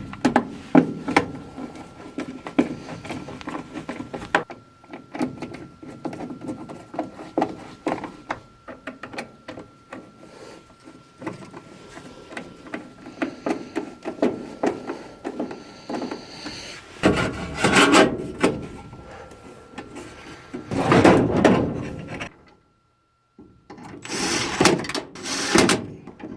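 Clicks, knocks and scraping of sheet-metal furnace parts being handled and fitted, with a few louder stretches of rubbing and sliding in the second half, over a faint steady high whine.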